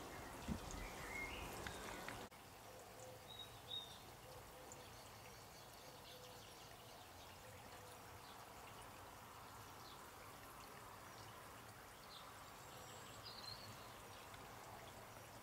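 Quiet garden ambience with a few faint, short bird chirps. A louder background hiss drops away suddenly about two seconds in.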